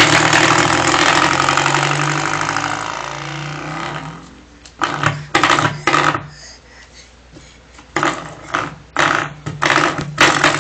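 Spring door stopper flicked and twanging, a buzzing vibration that dies away over about four seconds. Then it is flicked again several times in quick, short twangs.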